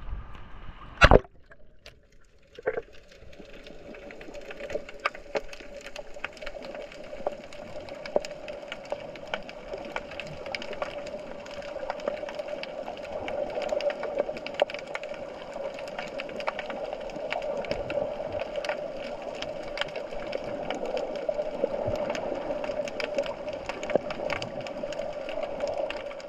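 Underwater sound picked up by a GoPro in its housing: a steady hum and water hiss, dotted with many small crackling clicks. A single sharp knock comes about a second in, followed by a brief quiet before the hum builds up.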